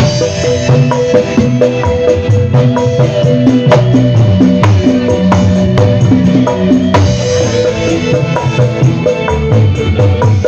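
Javanese kendang played by hand in a fast dangdut koplo groove, its deep bending bass strokes and sharp slaps running over the band's sustained music.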